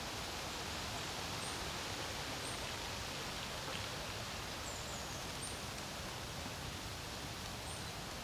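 Steady wind with a rustle, with a few faint high bird chirps over it and one short falling trill about halfway through.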